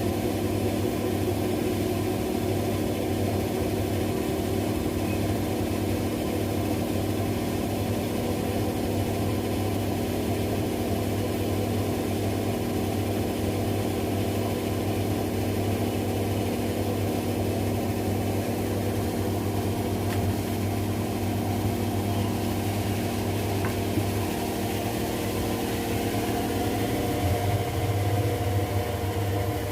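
Washing machines spinning at speed, a steady motor and drum hum with a strong low drone. The hum changes near the end as the spin speed shifts.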